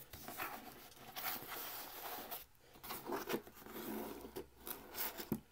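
Trading cards handled on a table: a series of short rustles and scrapes as a stack of cardboard cards is gathered up and set down, with a brief pause about halfway through.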